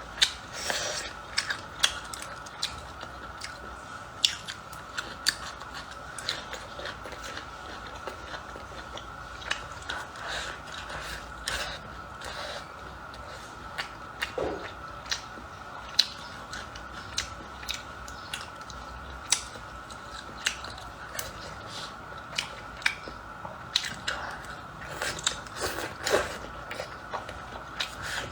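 Close-miked eating sounds: chewing and biting with frequent irregular sharp clicks and mouth smacks, over a faint steady high-pitched hum.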